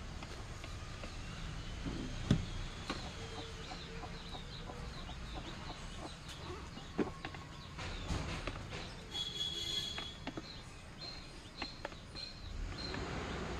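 Chickens clucking and small birds chirping, with a few sharp wooden knocks and taps as cricket bats are handled.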